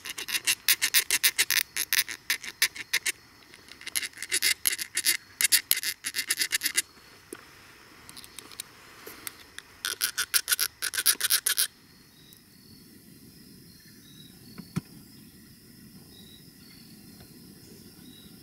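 Two quarters clicked together rapidly in hand, used as a squirrel call to imitate a squirrel's barking chatter, in three quick runs with short pauses between. After the last run, near the middle, only quiet woodland background remains, with one soft knock.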